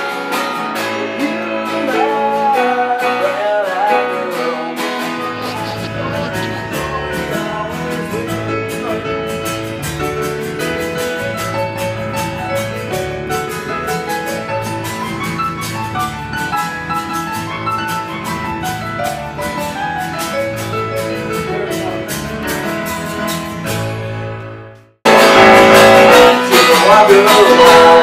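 Acoustic guitar and digital stage piano playing a song together, with a voice singing over them in the first few seconds. The music fades out about 24 seconds in, and a louder piece of music starts abruptly a second later.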